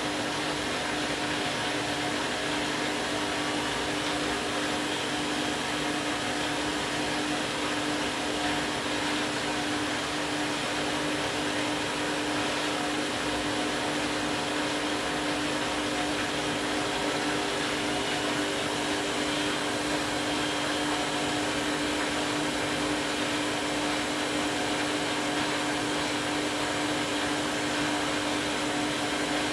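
Candy washing machine running an empty bleaching programme: its drum motor gives a steady whine with a constant hum, unchanging throughout.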